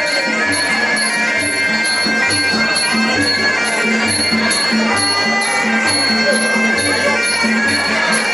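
Muay Thai ringside band playing sarama fight music: a reedy pi java oboe holding a wailing melody over a steady beat of klong khaek drums and small ching cymbals.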